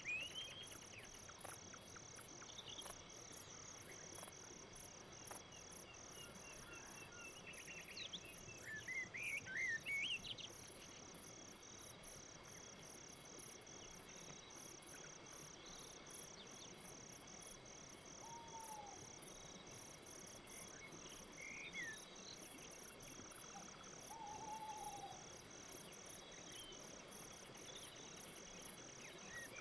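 Crickets chirping in a steady, evenly pulsed rhythm, with a few short bird chirps and calls scattered through, a cluster of them about a third of the way in.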